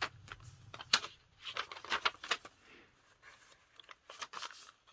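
Paper pages of a handmade junk journal being turned and handled: several short rustles and crinkles, with a cluster between about one and two and a half seconds in and another just past four seconds in.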